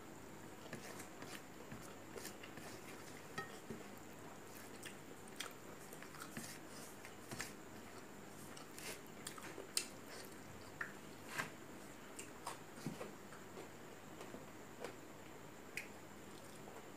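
Close-up mouth sounds of someone eating rice and egg by hand: chewing with wet lip smacks, heard as a string of irregular small clicks.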